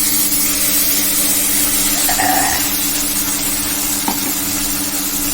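Ground masala paste sizzling steadily as it fries in hot oil in a pan.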